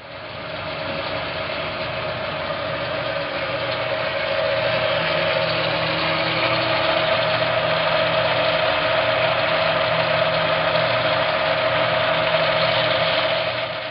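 Hardinge HLVH toolroom lathe running under power, a steady mechanical whir with a constant tone; it grows louder about four seconds in.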